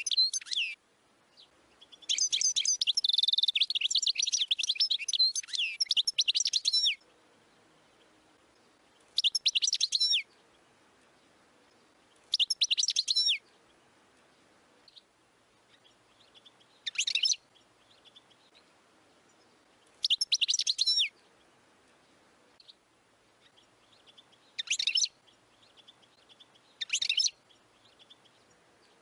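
European goldfinch singing: bursts of rapid, high twittering notes, with one long phrase of about five seconds near the start, then short bursts of about a second every few seconds.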